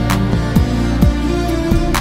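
Background music with a steady beat: deep bass-drum hits that slide down in pitch about twice a second, over sustained tones.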